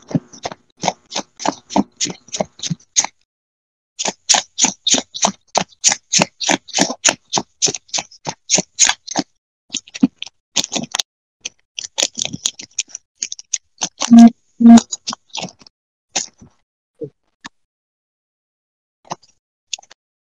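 Sleeved trading cards being shuffled by hand: a fast run of crisp slaps, about four a second, with a short break about three seconds in. Two loud thuds come about halfway through, followed by a few scattered clicks.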